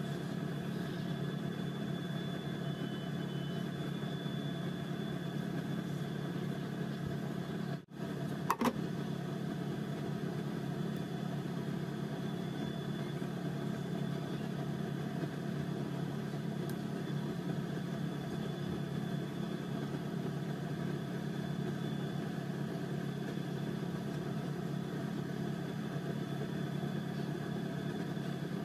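Steady mechanical hum of a running motor, holding several fixed tones without change. It drops out briefly about eight seconds in, and a short light knock follows.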